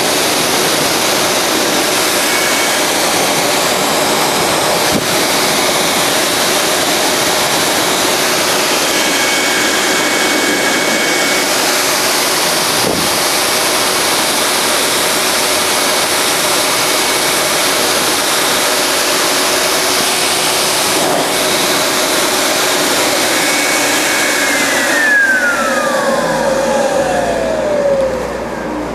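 Pet grooming blower running steadily at full blast, its air blown through an Angora rabbit's coat, with a steady high whine. Near the end it is switched off and the whine falls away as the motor winds down.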